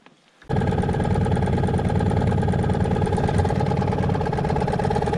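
Small boat's outboard motor running steadily while trolling. It cuts in abruptly about half a second in and holds an even pitch.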